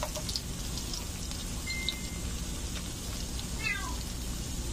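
Battered spinach frying in hot oil, a steady sizzle. A cat meows near the end, twice, each call falling in pitch.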